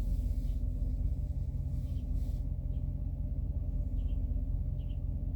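Truck engine idling: a steady low rumble.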